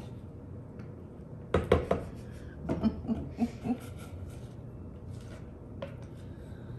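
Silicone spatula knocking and scraping against a saucepan as the last of the cream is scraped out: a few sharp knocks about one and a half seconds in, then a quick run of short scrapes and taps, and one click near the end.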